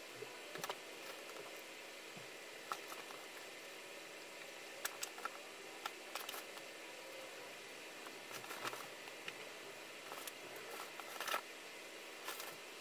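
Scattered light clicks and taps with faint fabric rustling as laundry is hung over a metal clothes-drying rack, the sharpest tap near the end, over a low steady room hiss.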